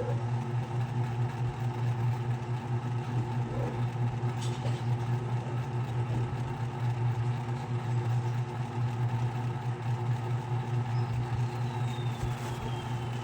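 Ceiling fan running: a steady low hum that does not change, with a faint click about four and a half seconds in.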